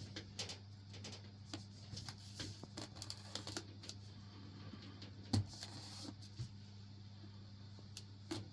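Keystrokes on a Lofree Flow 2 68-key mechanical keyboard with Silver Surfer switches: irregular clicks, several a second at first and sparser later, with one louder clack about five seconds in. A low steady hum lies underneath.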